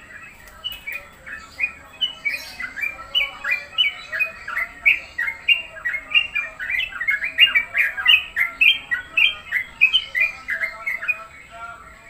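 Caged songbird singing a long, fast run of short chirping notes, about three or four a second. The run starts about a second in and stops near the end. The bird is hung beside other caged birds ('tempel') to set it singing.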